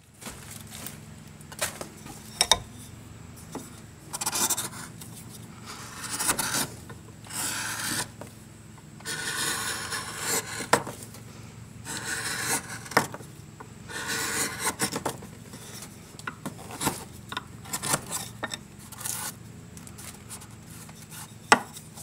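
A carving gouge cutting shavings from the inside of a birch kuksa cup: a series of uneven scraping strokes, roughly one every one to two seconds, with a few sharp clicks from the tool against the wood.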